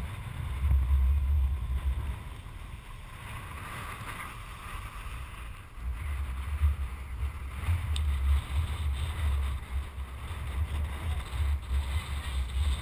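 Wind gusting on the microphone at the water's surface, a rumble that comes and goes, with small waves lapping and splashing around it.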